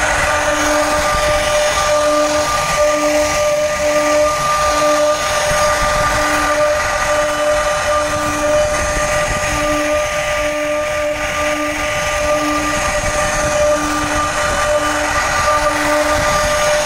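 Electric power tool running steadily at high speed: a constant whine over hiss, with a lower tone that pulses about twice a second.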